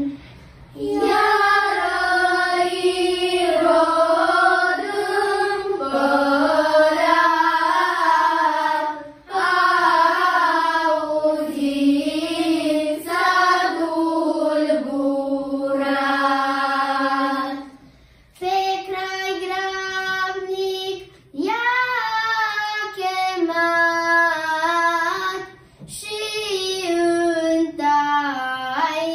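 Children's vocal group, mostly girls, singing a Romanian colind (Christmas carol), phrase after phrase with brief breath pauses between them.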